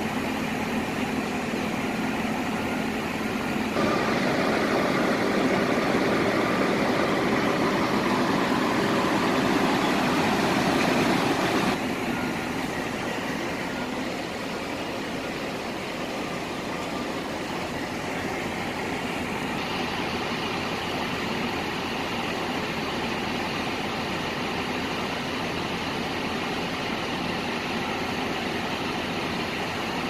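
Semi truck's diesel engine running steadily, heard from inside the cab. The sound changes abruptly about four, twelve and twenty seconds in, and is loudest between about four and twelve seconds.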